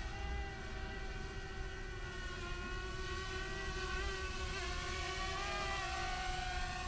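DJI Mavic Mini quadcopter flying overhead, its propellers giving a steady high whine made of several tones that waver in pitch as it manoeuvres.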